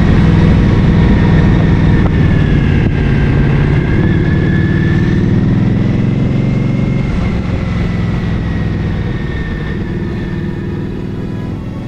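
Motorcycle engine running at a steady speed, gradually fading out.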